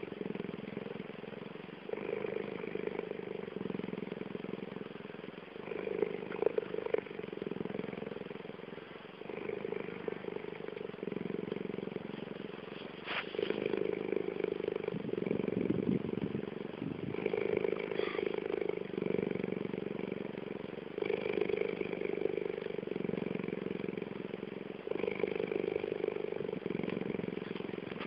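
Cheetah purring steadily at close range, a continuous low rumble that swells and eases in a slow rhythm every couple of seconds.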